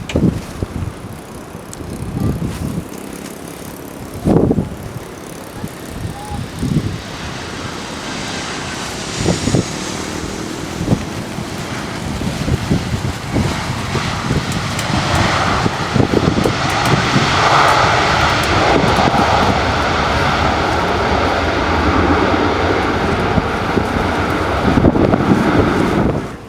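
Jet airliner's engines growing louder as it passes, with a steady fan whine over a rushing hiss, then cutting off abruptly near the end. Gusts of wind buffet the microphone throughout.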